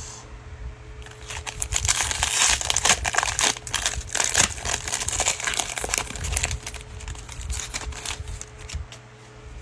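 Foil wrapper of a Panini Mosaic football card pack being torn open and crinkled by hand, a dense crackling that starts about a second in and fades near the end.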